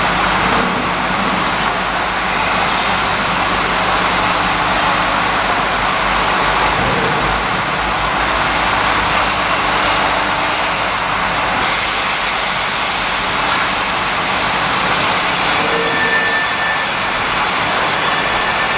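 Curtain wall end milling machine running, a loud, steady machine noise with no breaks.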